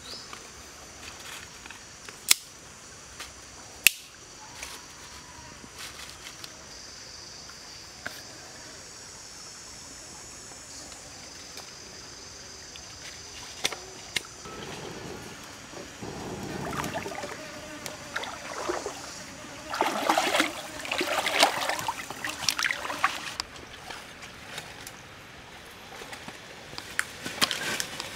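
Tropical forest ambience: insects buzzing steadily, with a stream trickling. Two sharp clicks come about two and four seconds in, and from about sixteen seconds in louder bursts of rustling and crackling take over.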